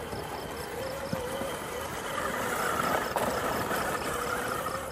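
Electric motors and gearboxes of 1/10-scale RC rock crawlers whining as they crawl over rocks, the pitch wavering with the throttle, with a couple of light knocks about one and three seconds in.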